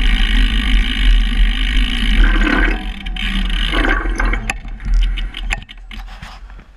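Rolling noise and low rumble from a bicycle ridden along an indoor wooden ramp, picked up by a camera mounted on the bike. About four and a half seconds in it drops to a quieter stretch with scattered clicks and knocks as the bike slows behind another rider.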